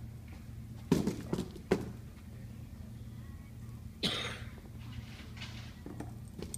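German shepherd searching among cardboard boxes and plastic containers: three quick knocks of containers being bumped a little after a second in, then a short noisy burst about four seconds in as she noses a plastic drawer unit, all over a steady low hum.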